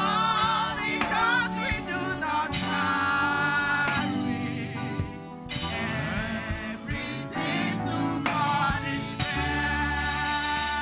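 Gospel praise team singing into microphones, with keyboard accompaniment.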